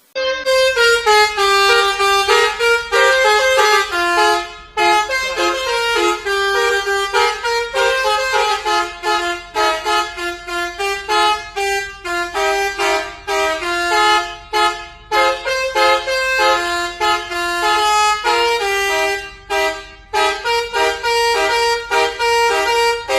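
Indonesian bus 'telolet' horn: a multi-tone air horn playing a quick melody of changing notes, on and on with a few brief pauses.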